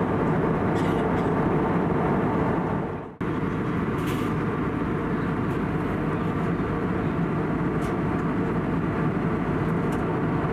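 Steady cabin noise inside an Airbus A320neo with CFM LEAP-1A engines: an even rush of air and engine sound. It fades out and breaks off for an instant about three seconds in, then resumes at the same level.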